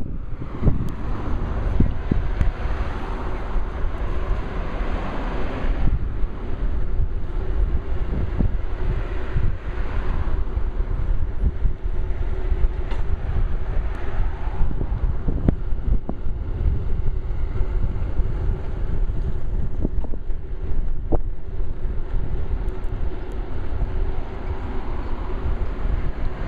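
Wind rushing over the microphone of a moving bicycle's camera: a steady low rumble.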